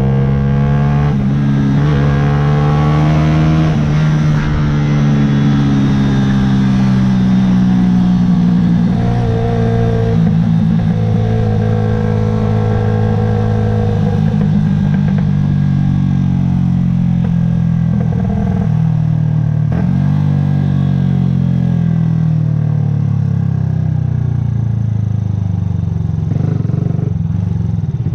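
2009 Yamaha YZF-R125's 125 cc single-cylinder four-stroke engine under way, its pitch climbing for the first few seconds, then dropping and rising again and again as the throttle opens and closes through gear changes.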